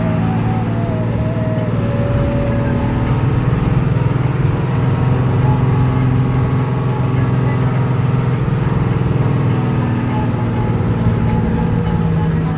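Hino AK1J bus's diesel engine running under way, a steady drone that shifts a little in pitch as it pulls.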